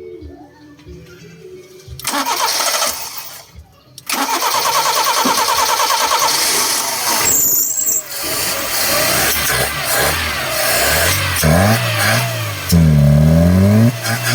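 Toyota Corolla 2E four-cylinder engine, hard starting, cranked on the starter in a short try and then a longer one; it catches and is revved up and down several times.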